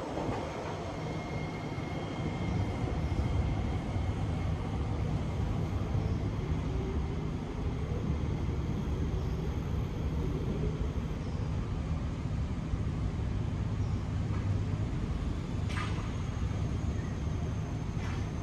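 C151B MRT train pulling away from an elevated station, its running sound fading into a steady low hum, with a faint rising whine partway through. Two short clicks come near the end.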